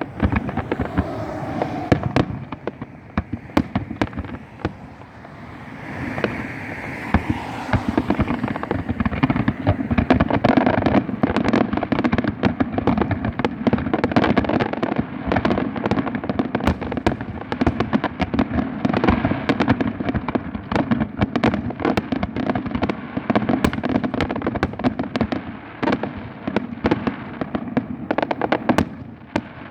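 Fireworks display going off: a rapid, continuous string of bangs and crackles that thickens into a dense barrage about a third of the way in.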